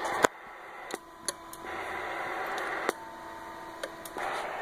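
Radio static hiss that stops and starts in stretches of about a second, with sharp clicks as it cuts off, typical of a ten-meter radio being keyed and unkeyed during a roger beep test.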